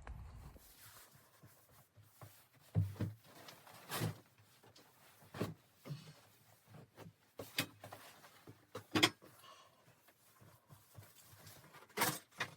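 Irregular knocks and clunks in a small room, several single impacts a second or more apart, the loudest about nine seconds in and near the end: someone handling things inside a cabin.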